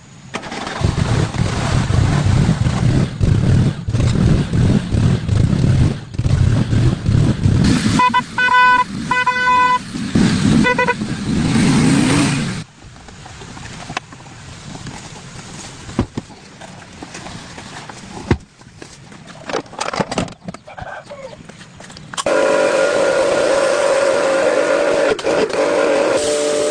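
A car engine running with a low rumble, then the car horn sounding in about four short honks. After a quieter stretch with a few knocks, a steady held tone starts near the end.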